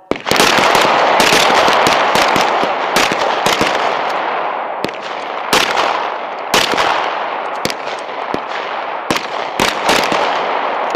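M17 9 mm pistols firing a long, irregular string of shots. Some shots come close together, with echo filling the gaps, and the firing starts abruptly.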